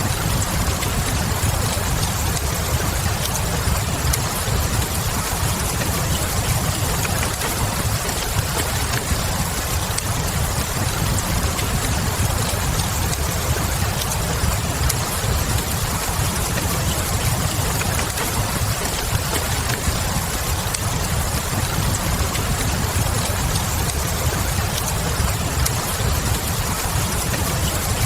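Steady rain blended with a wood fire in a fireplace: an even hiss of falling rain over a low rumble, with small crackles and pops from the burning logs scattered through it.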